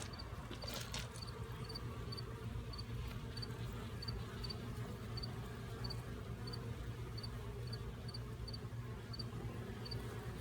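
Honeybees buzzing steadily around the hive entrances as they fly in and out. A short, high double chirp repeats every half second or so over the hum.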